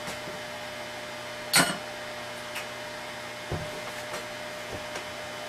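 Small hard tools and parts being handled: one sharp clack about a second and a half in, then a few lighter knocks, over a steady low hum in the room.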